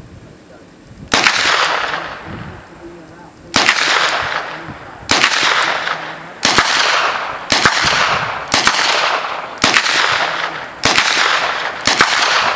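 Uzi submachine gun fired in single shots: nine sharp reports, the first few spaced two to three seconds apart, then about one a second. Each report trails off in an echo lasting about a second.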